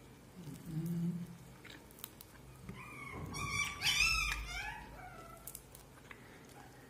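A dog whining and whimpering in a run of high, wavering cries, about three seconds in and lasting some two seconds.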